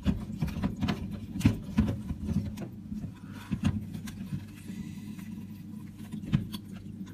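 Hands twisting a wet cheesecloth bag of ricotta curds in a plastic colander to wring out the whey: irregular soft clicks, knocks and rustles of cloth and plastic, over a low steady hum.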